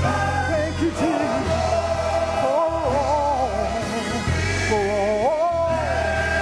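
Gospel singing with instrumental accompaniment: sung lines with wide vibrato and long held notes over a steady bass.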